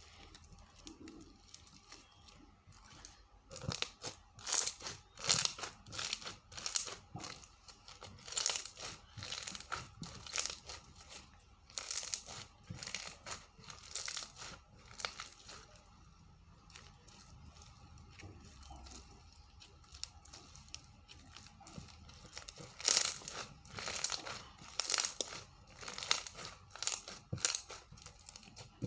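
Foam slime full of foam beads being squeezed and poked by hand, giving irregular crunchy crackles and pops in clusters, with a quieter stretch in the middle.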